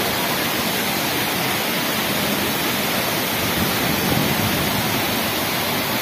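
Waterfall rushing steadily as white water pours down over rocks.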